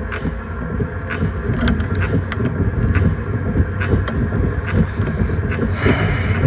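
Steady low rumble with many scattered light clicks and taps, the handling noise of a phone's microphone held close.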